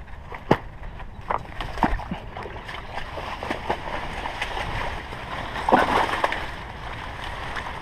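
Splashing and sloshing in thick pond pads as a hooked largemouth bass is worked in and reached for by hand, with leaves rustling and scattered sharp clicks. A louder flurry of splashing comes about six seconds in.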